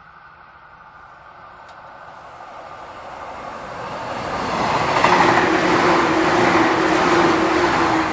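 Running noise inside a 485-series electric train car, swelling steadily from quiet to loud over about five seconds. A steady hum joins it about five seconds in.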